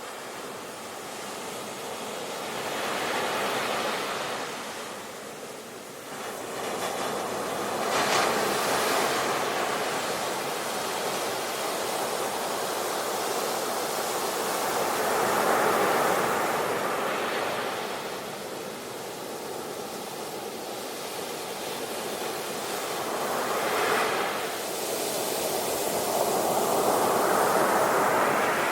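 Ocean waves washing onto a shore, rising and falling in slow surges every several seconds, with sharper breaking crashes about eight seconds in and again near twenty-four seconds.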